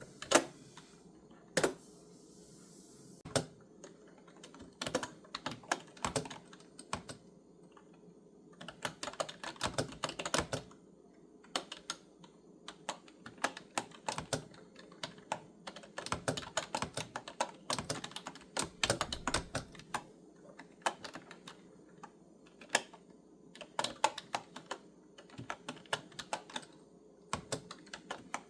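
Typing on a clicky computer keyboard: a few separate key presses at first, then runs of quick keystrokes broken by short pauses.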